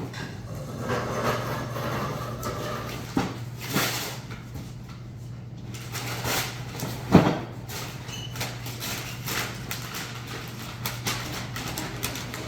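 A toy box and its packaging being handled: scattered rustles and knocks, with one loud thump about seven seconds in, over a steady low hum.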